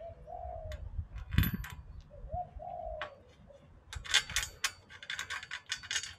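A dove cooing twice, two short calls a couple of seconds apart. A sharp metal knock comes between them, and from about four seconds in there is rapid metallic clicking of tools being worked on the cage fittings.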